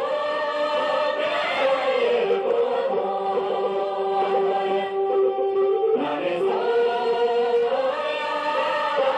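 Tibetan gorshey circle-dance song sung by a group of voices in long, drawn-out held notes, with a new phrase starting about six seconds in.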